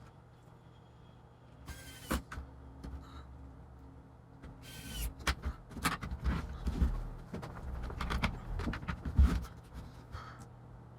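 Two short scraping sounds, about two and five seconds in, then a busy run of clicks and knocks from handling hardware on a workbench.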